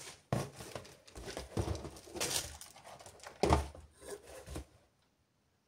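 Packaging being handled: rustling and crinkling in irregular bursts, stopping near the end.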